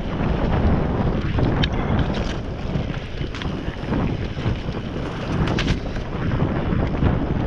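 A Specialized Enduro S-Works mountain bike rolling fast down a dirt singletrack, with wind on the microphone and a steady rumble from the tyres over soil and leaves. A few sharp clicks and rattles come from the bike as it runs over bumps.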